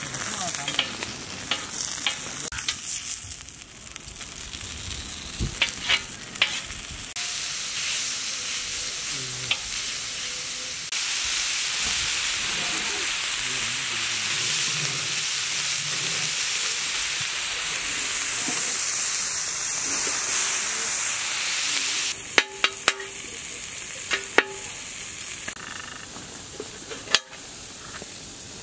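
Chicken sizzling on a hot griddle, with scattered scrapes and clicks of a metal spatula. The sizzle becomes loud and steady about a third of the way in and drops away about three quarters of the way through, giving way to sharp knocks of a knife chopping on the griddle.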